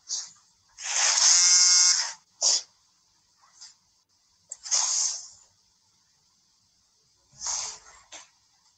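A woman crying: a loud, breathy, sobbing wail about a second in, then shorter breaths and sniffs. A brief bump of handling noise comes near the end.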